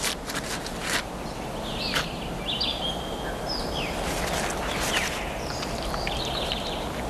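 Natural ambience with a steady hiss, a few sharp clicks in the first two seconds, and short high chirping calls through the middle.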